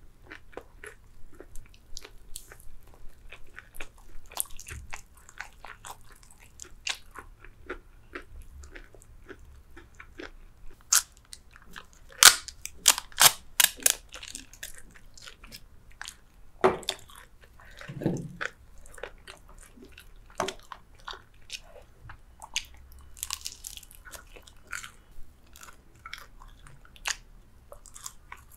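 Close-miked chewing and biting of crispy fried chicken: wet mouth sounds and crackling crunches of the fried coating, with a run of loud sharp crunches about halfway through.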